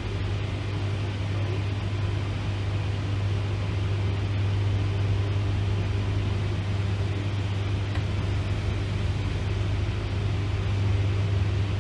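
Cab noise of a Class 90 electric locomotive on the move: a steady low hum under an even rushing running noise.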